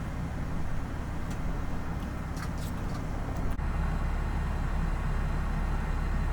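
Steady low rumble of a vehicle on the move, with a few faint clicks; about three and a half seconds in there is a sharper click and the rumble grows a little louder.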